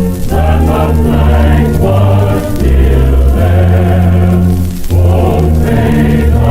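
Slow music of held chords over a deep bass, the chords changing every one to two seconds.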